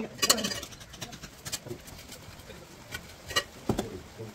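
Bricks and a mason's trowel knocking as bricks are laid and bedded into cement mortar: a few sharp knocks, the loudest just after the start and two close together about three and a half seconds in.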